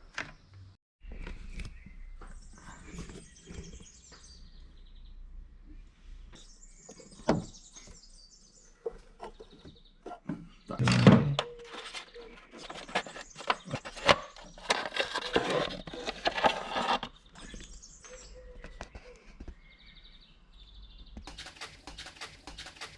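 Hand tools and metal parts clicking, knocking and clattering in irregular bursts during hands-on engine work, busiest in the middle with one louder knock. Birds chirp faintly in the background.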